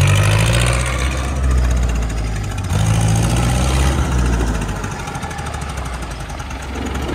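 Modified John Deere tractor's diesel engine running under load as it turns in tight circles; it revs up at the start and again about three seconds in, then eases off.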